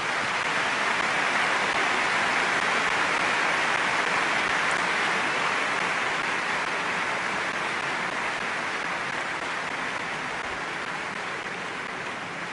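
Tennis crowd applauding after a point, a dense steady clapping that eases off slowly in the second half.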